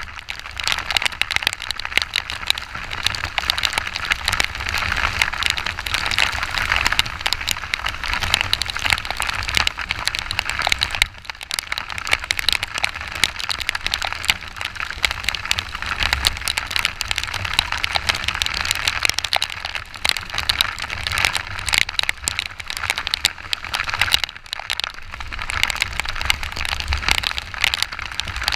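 Heavy rain pattering and crackling on the camera and microphone while riding a Yamaha XTZ 125 motorcycle, over a low rumble from the ride, with brief lulls twice.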